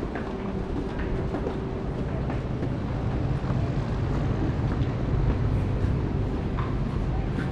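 Train running past with a steady low rumble.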